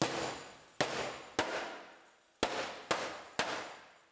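Six hard hammer blows on the back of a steel inner apron panel, each ringing off after it, knocking loose the drilled-out spot welds so the panel separates.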